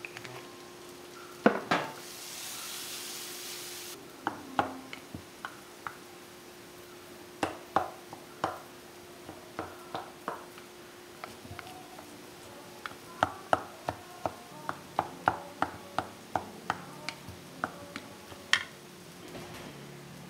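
Wooden spoon stirring chopped tomatoes in a stainless steel mixing bowl, knocking against the metal sides in sharp irregular knocks that come faster, about two a second, in the second half. A faint steady hum runs underneath.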